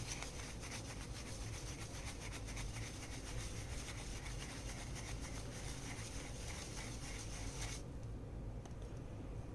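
Rapid scrubbing strokes on graphics card parts being cleaned of dust and grime, stopping abruptly near the end.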